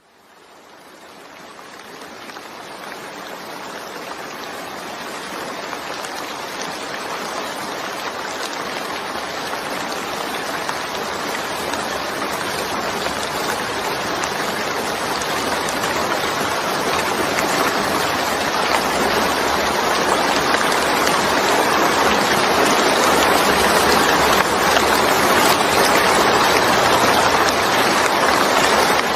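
Steady rain falling, an even hiss of many drops, fading in from silence over the first few seconds and slowly swelling louder.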